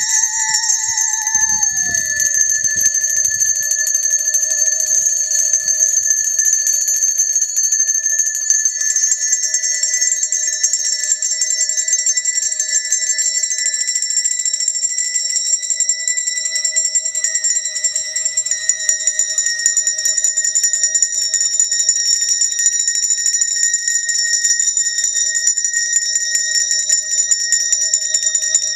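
Handbells rung rapidly and continuously, a dense shimmer of high ringing tones, under a bowed musical saw holding one wavering note that slides down about two seconds in and then stays put.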